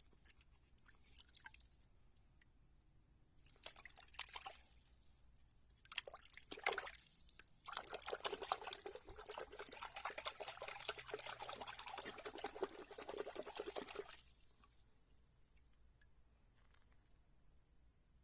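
Water trickling and splashing as plaster investment is washed off a freshly cast silver piece, with a few scattered clicks first and then a steady spell of running, splashing water that stops about fourteen seconds in.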